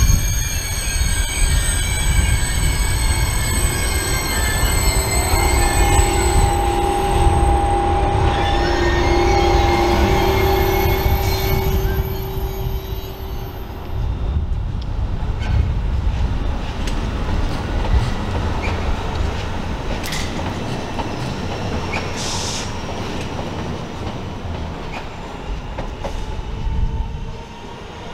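Thalys high-speed train rolling slowly past the platform. Its wheels squeal in several high tones for about the first half. After that comes a steady rumble with a few sharp clicks.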